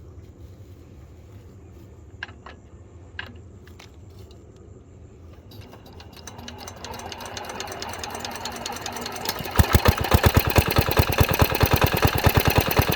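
A small engine building up over a few seconds and then, about nine and a half seconds in, catching and running loud with a rapid, steady knocking beat. A couple of light clicks come before it.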